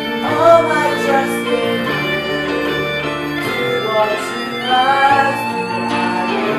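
Musical accompaniment for a stage musical: instrumental music of held, steady notes with a melody moving above them.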